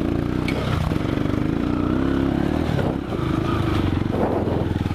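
Dirt bike engine running at low speed on a rough trail. The throttle opens and closes, so the engine note rises and falls a few times.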